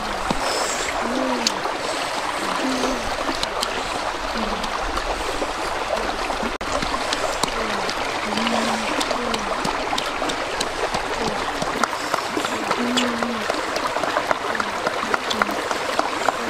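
Frogs roasting on a split-stick skewer over embers: a steady sizzle with many fine crackles and pops throughout. Short low-pitched calls recur faintly about once a second in the background.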